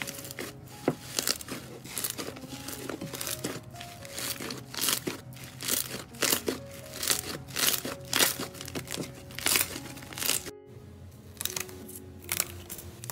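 Hands squeezing and folding a large mass of green slime, giving many short crackles and pops, over soft background music. After a brief break near the end, a hand pressing down on a crumpled sheet of silver foil, crinkling.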